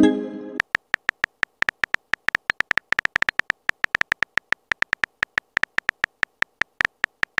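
Texting-app sound effects: a short pitched chime as a message is sent, fading within about half a second. It is followed by a steady run of sharp keyboard tap clicks, several a second, as the next message is typed.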